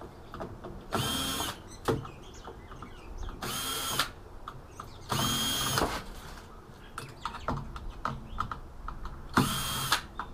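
Cordless drill-driver removing screws from the eMac's chassis in four short runs of under a second each, the motor whine rising as it spins up each time. Light clicks between the runs.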